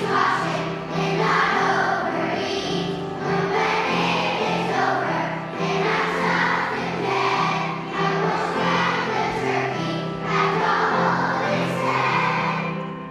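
A group of young children sings a Thanksgiving song together as a choir, in phrases over steady instrumental accompaniment. The singing drops away right at the end.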